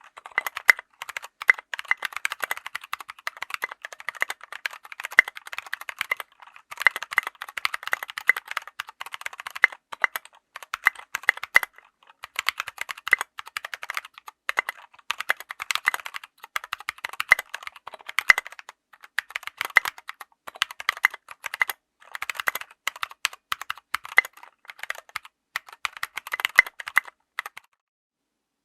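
Mechanical keyboard with stock Gateron Brown tactile switches being typed on, a quick, uneven run of keystroke clacks with a few brief pauses. The typing stops shortly before the end.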